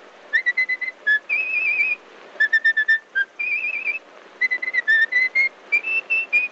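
A tune whistled in quick runs of short notes broken by longer held notes with a wavering vibrato, over a steady hiss from the early sound-film track.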